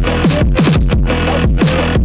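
Electronic music with a steady beat and deep bass notes that slide down in pitch about twice a second.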